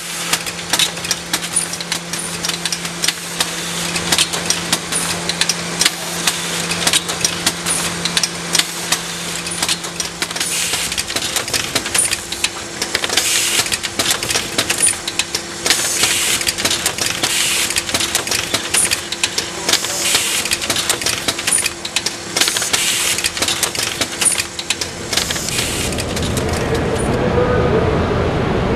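Kern 515 EasyMailer mailing system running: rapid clattering and ticking of its paper transport, envelope transfer and sheet-folding mechanics over a steady motor hum, with a sharp tick about once a second. About 25 s in this gives way to a lower, louder rumble.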